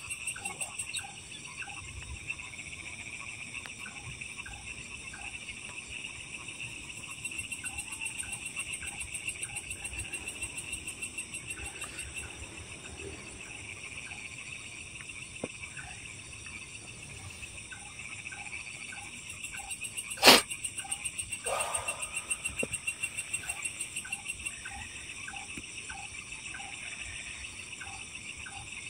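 Night chorus of insects trilling steadily, with frogs calling in short, evenly repeated notes. A single sharp click stands out about twenty seconds in, followed by a brief falling sound.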